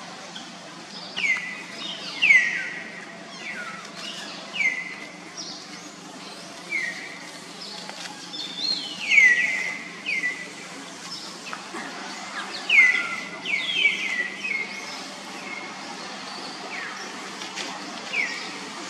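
Short high-pitched animal calls, each sliding quickly down in pitch and then holding briefly, repeated at irregular intervals of a second or two, some in quick clusters of two or three.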